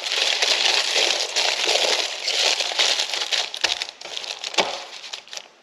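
Aluminium foil (tin foil) crinkling and crumpling as it is folded and wrapped around a whole fish, a dense crackly rustle that tapers off about four seconds in, with a couple of soft knocks near the end.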